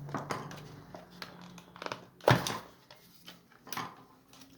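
Phillips screwdriver working at a screw in the plastic back case of a digital multimeter: scattered small clicks and scrapes of plastic and metal, with one sharp knock about two seconds in.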